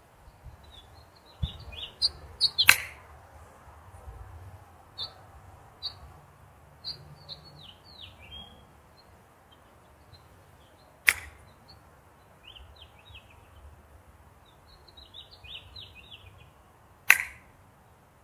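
A golf club strikes a ball on three chip shots: three sharp clicks several seconds apart. Small birds chirp in quick runs of short, falling notes between the strokes.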